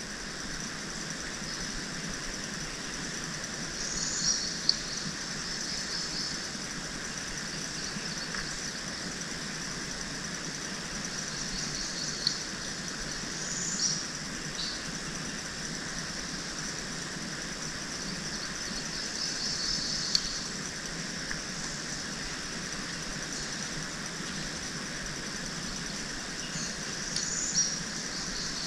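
Swamp ambience: a steady hiss with a bird's short high call repeating every five to seven seconds, and a few sharp small clicks.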